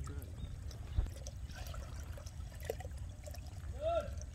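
Water pouring and trickling steadily through a shallow fish-trap channel, with small splashes, and a single knock about a second in.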